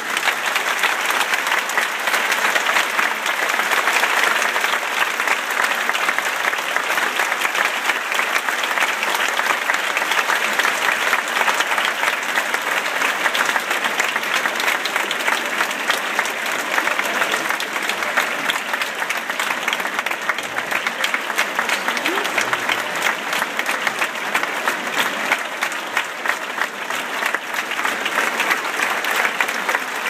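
A large theatre audience applauding: dense, steady hand clapping that holds at an even level throughout.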